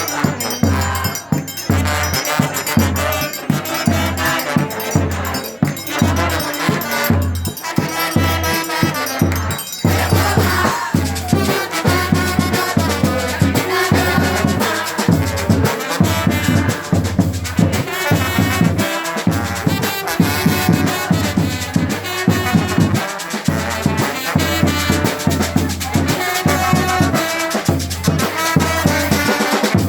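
Brazilian street brass band (fanfarra) playing: trumpets, trombones and saxophones carry the tune over a steady surdo bass-drum beat of about two strokes a second and busy snare-drum (caixa) and shaker percussion.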